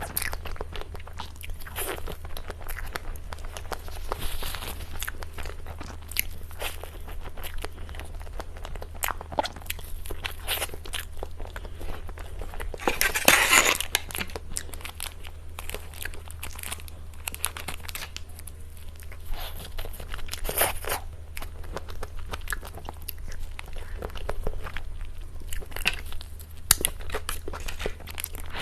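Mouth sounds of someone eating cake: bites and chewing with many small crunches and wet clicks, and one louder, longer crunch about halfway through. A steady low hum runs underneath.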